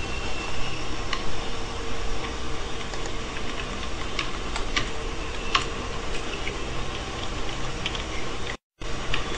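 Computer keyboard keystrokes, a few irregularly spaced clicks, over a steady background hum. The sound cuts out briefly near the end.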